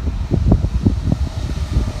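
Wind buffeting the microphone: a low rumble broken by irregular gusts.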